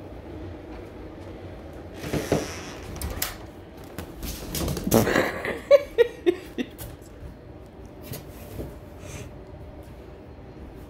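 Household handling noise: a brief rustle, then another, followed by a quick run of five or six sharp knocks in little over half a second, with a few faint clicks afterwards.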